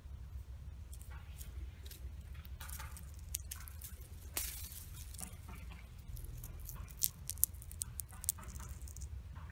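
Dry, ripe mustard seed pods and stalks crackling and snapping in the hand as they are picked and handled, in scattered sharp clicks that come thickest near the end. A low steady rumble runs underneath.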